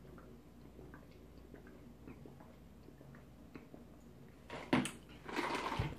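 A person sipping quietly through a drinking straw, with faint mouth and swallowing clicks. Near the end there is a sharp click, then a short burst of breathy noise.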